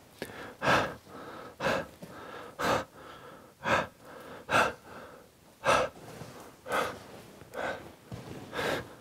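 A man breathing hard and fast: a loud, sharp breath about once a second, with quieter breathing between.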